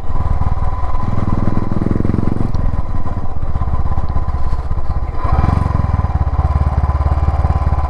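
Motorcycle engine running while the bike is ridden. The engine note rises twice as the throttle opens, about a second in and again around five seconds in.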